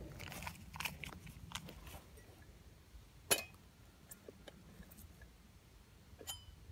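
Scattered crackles and pops from small wood burning in a camp twig stove under a steel cook pot, with one sharp pop about three seconds in. Near the end comes a metallic click as the pot's lid is taken by its knob.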